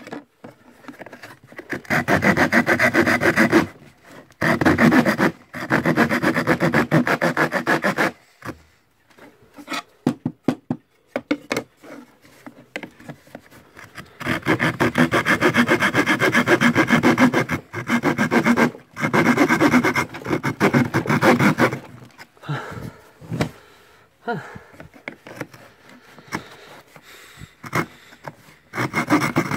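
Small hand saw cutting through thin plywood. It goes in several bursts of fast strokes a few seconds long, with softer scraping in the pauses between.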